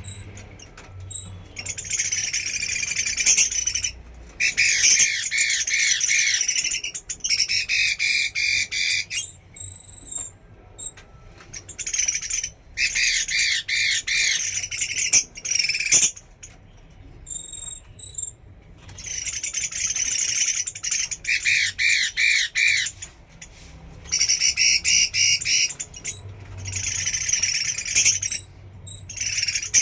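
Chinese hwamei (bạch mi) singing loudly in bouts of rapid, repeated high notes lasting a few seconds each, broken by short pauses.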